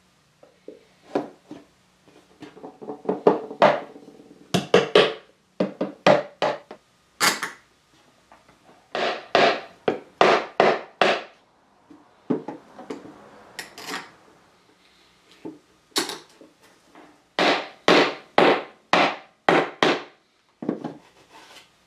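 Hammer blows on wood in quick runs of three to seven strikes with short pauses between, as pieces are fastened onto a wooden table's apron frame by hand.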